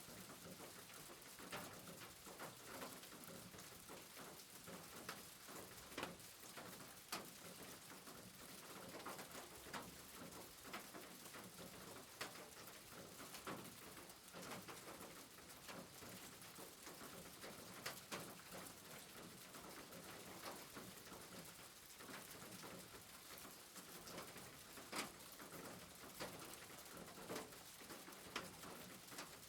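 Steady light rain with scattered sharp drips tapping on a surface.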